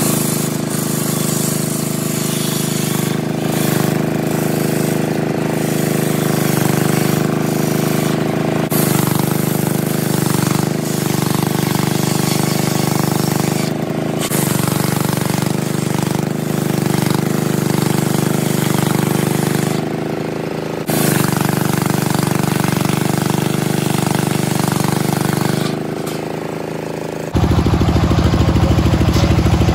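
Large homemade circular saw blade ripping through a teak log: a steady machine drone under the harsh hiss of the cut. The sound shifts abruptly several times, and near the end it turns louder and harsher with a deep drone.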